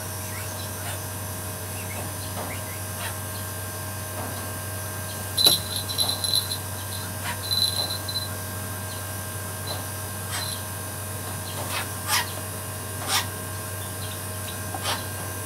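A tethered brahminy kite flapping up onto a perch, with its metal leash chain clinking and jingling in two bursts midway, then a few single sharp clicks. A steady low hum runs underneath.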